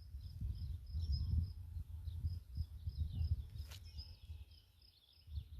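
Outdoor ambience: birds chirping, with short high chirps repeating at an even pace, over an uneven low rumble that eases off near the end. A single sharp click about three and a half seconds in.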